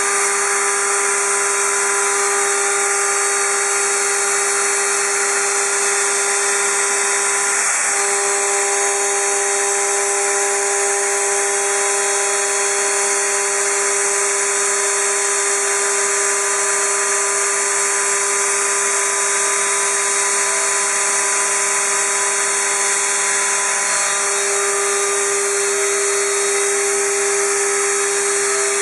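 Shoda NC router spindle running at a steady high pitch while trimming a pressure-formed plastic keyboard cover, over a constant hiss.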